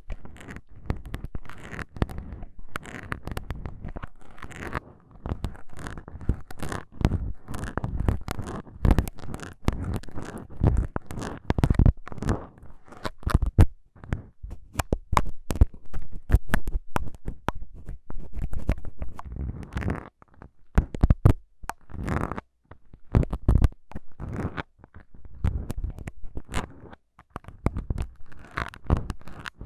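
Small plastic syringes scratching and tapping on a recorder's foam microphone windscreens, very close to the microphones. It is a dense, irregular crackly scratching full of sharp clicks, pausing briefly now and then.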